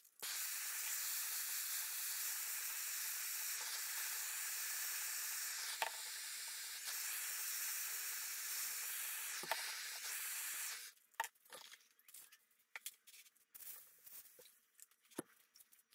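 Hand-held gas torch hissing steadily as its flame heats a cleaver's steel tang in a straightening jig, shut off abruptly after about eleven seconds. Scattered small clicks and taps follow.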